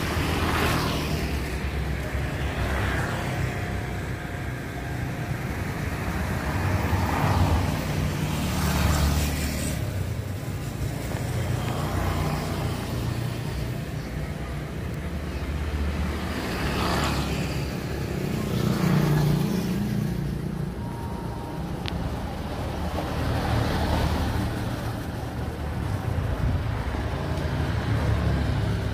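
Outdoor road traffic: a constant low rumble, with vehicles passing by every few seconds.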